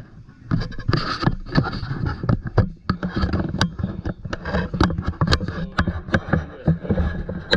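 Handling noise close to the microphone: dense, irregular rubbing, scraping and knocking as the camera is moved about.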